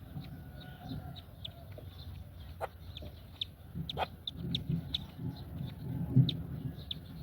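Birds calling: repeated low pulsed calls under many short, high chirps, with a few sharp clicks about two and a half and four seconds in.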